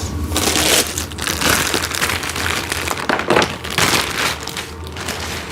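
Packaging rustling and crinkling irregularly as the toy backhoe's loader parts are handled and unwrapped.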